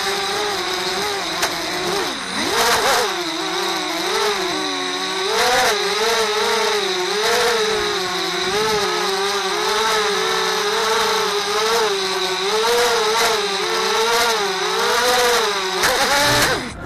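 Open 250 racing quadcopter's brushless motors and propellers whining, heard from its onboard camera, the pitch rising and falling in quick swells with the throttle. Near the end the pitch drops sharply as the motors wind down.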